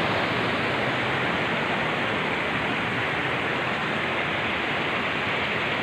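Rocky mountain stream rushing over boulders and small cascades, a steady, even rush of water.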